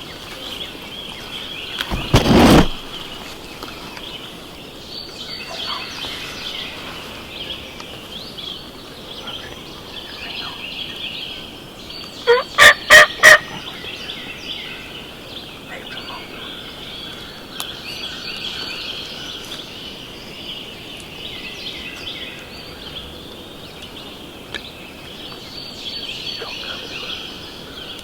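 Wild turkey gobbler gobbling close by, a loud rattling gobble of four quick pulses about halfway through, with a loud burst of sound about two seconds in. A steady chorus of high songbird chirping runs underneath.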